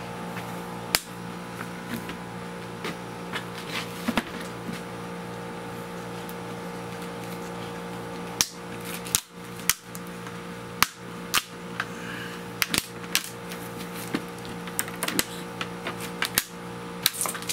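Sharp clicks and taps of hands handling a vinyl window frame and its plastic film, coming more thickly after about halfway, over a steady hum.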